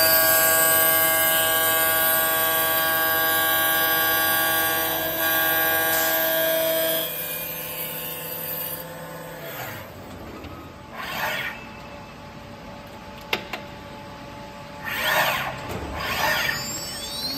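CNC glass machining centre running, a steady machine whine of several tones that stops about seven seconds in. After that it runs quieter, with a few short hissing bursts and one sharp click.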